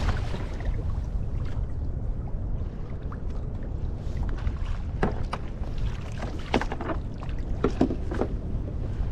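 Wind buffeting the microphone as a steady low rumble on a kayak in rising wind, with a handful of short, sharp water slaps against the hull between about five and eight seconds in.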